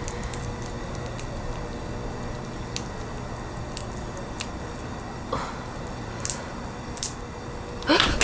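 Steamed swimming crab being cracked and picked apart by hand: faint, scattered sharp clicks of shell snapping and soft squishy sounds of meat pulling away, over a steady low hum.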